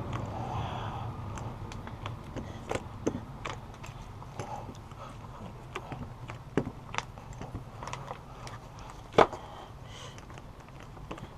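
Sound-deadening mat being pressed and rolled onto a panel: scattered light clicks and taps from handling the sticky foil sheet, with one sharper knock about nine seconds in.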